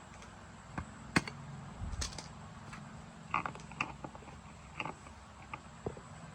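Irregular light clicks, taps and knocks from hand work on a motorbike's parts with tools, the sharpest about a second in, over a faint steady low hum.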